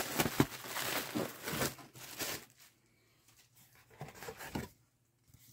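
Clear plastic packaging bag crinkling and rustling as it is handled and pulled out of a cardboard box, loudest in the first two and a half seconds. Softer handling noise from the box follows about four seconds in.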